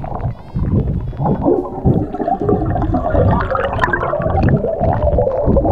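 Bubbling, gurgling water heard through an underwater camera as a freediver rises toward the surface, with air bubbles streaming around him.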